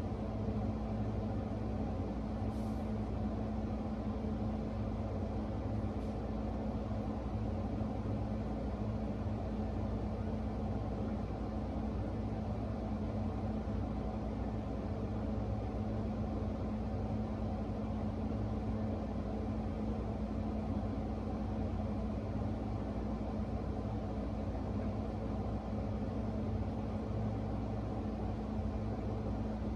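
A steady low mechanical hum with one constant tone and a rumble beneath it, unchanging throughout.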